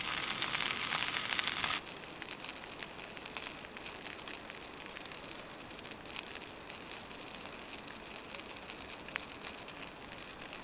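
Sausages sizzling in a small frying pan on a gas canister camping stove, cutting off suddenly about two seconds in. A quieter steady hiss with a few faint clicks follows.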